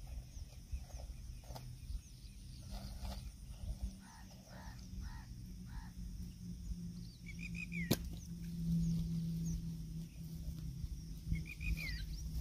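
Handling and rustling sounds, with one sharp click about eight seconds in, over a steady low hum. Birds chirp and call now and then.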